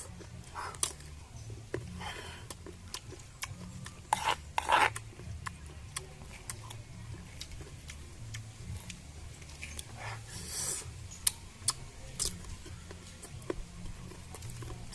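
Intermittent rasping, scraping strokes with scattered light clicks and taps in between; the loudest strokes come about four to five seconds in and again near ten seconds.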